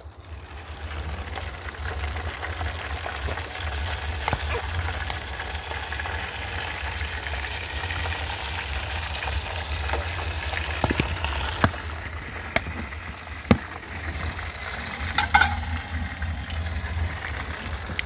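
Food sizzling and frying in a metal tray over a small wood fire, with a utensil stirring it and a few sharp knocks scattered through. A steady low rumble runs underneath.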